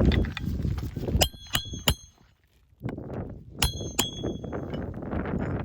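Hammer striking roofing nails with a sharp metallic ring, three quick blows about a second in and two more a couple of seconds later, between scraping and rustling of asphalt shingles being handled.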